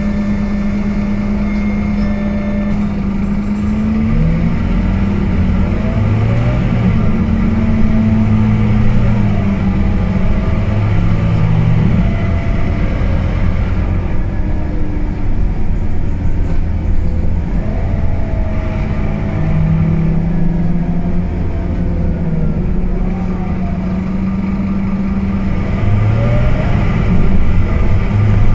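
Scania K230UB city bus heard from inside the passenger saloon. Its five-cylinder diesel runs steadily at first, then from about four seconds in the bus pulls away, and the engine note rises and drops back in steps as the automatic gearbox changes up. It settles into a steadier run, then climbs again near the end.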